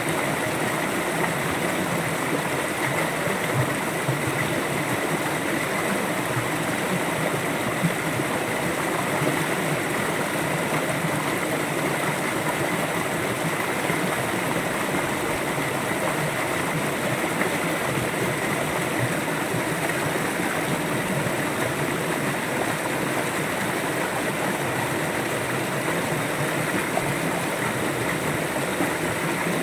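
River water flowing and rushing steadily over its bed, an even, unbroken wash of sound.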